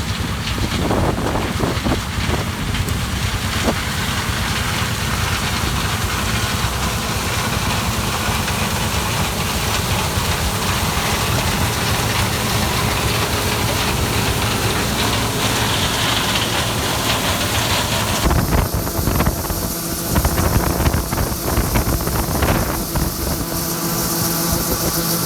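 A large engine running steadily, with wind on the microphone. About 18 seconds in the sound changes abruptly to a steadier engine hum with a constant tone.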